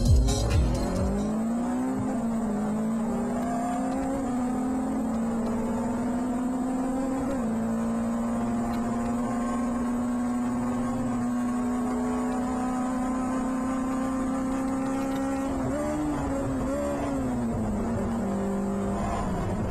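Onboard sound of a PRB Clubman Seven-style race car's engine under load: the note climbs over the first few seconds, then holds a steady high pitch at full throttle with a brief dip about seven seconds in. Near the end the note wavers and falls.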